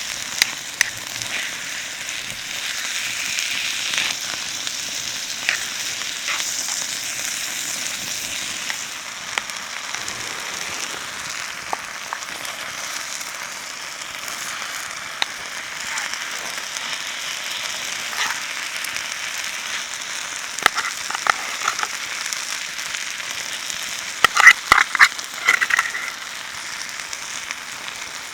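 Food sizzling in a pan, a steady hiss with scattered pops and crackles, and a cluster of sharper clicks near the end.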